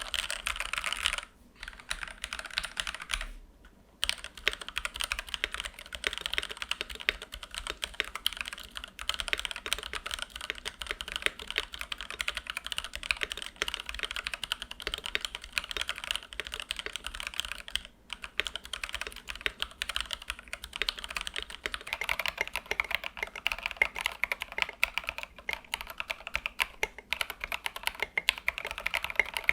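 Typing test on a Press Play Orbiter67 65% mechanical keyboard fitted with stock Jwick Black switches and SA-profile keycaps: a dense, clacky stream of keystrokes. There are brief pauses near the start, and the typing gets busier about two-thirds of the way in.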